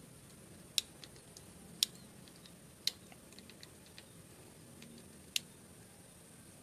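Piezo igniter on an RRT-type gas stove valve clicking four times as the knob is turned, being tested for a spark after the igniter plug has been reconnected. The snaps are sharp and single, about a second apart, with a longer gap before the last.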